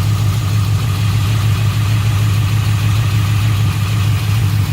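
Car engine idling roughly and unevenly, the engine shaking hard: a rough idle that the owner suspects is a misfire.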